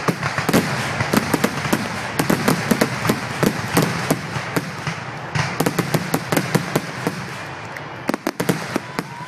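Fireworks finale: a dense barrage of aerial shell bursts, sharp bangs several times a second over a continuous din, thinning out near the end.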